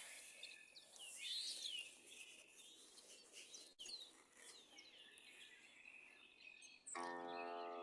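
Birds singing, with many short chirps that rise and fall, over a faint steady hiss. About seven seconds in, a sustained ringing musical tone with several overtones starts.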